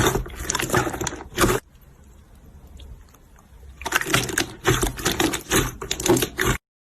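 Slime being squeezed and worked by hand, making dense wet clicking and crackling. It comes in two bouts with a quieter pause between them, and cuts off suddenly near the end.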